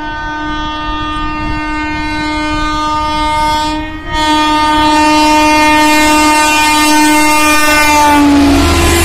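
Indian Railways electric locomotive sounding one long horn as the express approaches at full speed, with a short break about four seconds in. Just past eight seconds the horn's pitch drops as the locomotive passes, and the rush of the train going by rises.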